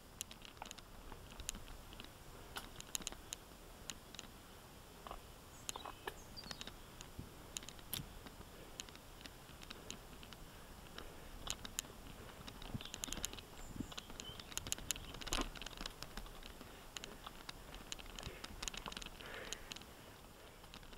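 Mountain bike rolling along a dirt single-track trail: scattered, irregular clicks and light rattles from the bike and tyres over a low rolling rumble.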